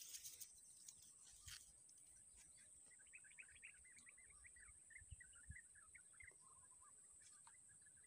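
Faint bird chirping, a quick run of short high notes starting about three seconds in and dropping lower near the end, over a steady high-pitched buzz. A few faint clicks near the start.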